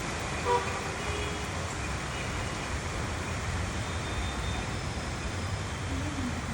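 Strong wind blowing steadily and buffeting the microphone with a low rumble. A brief tone sounds about half a second in.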